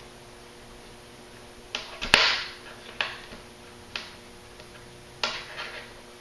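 Thin shock cord being pulled through a shotgun sling by hand: a series of short swishing, rustling pulls about a second apart, with a sharp click about two seconds in.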